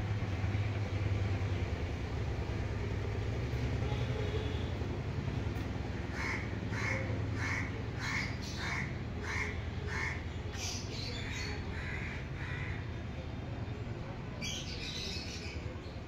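A crow cawing in a quick, even run of about seven calls, starting about six seconds in, followed by a few more irregular caws, over a steady low rumble.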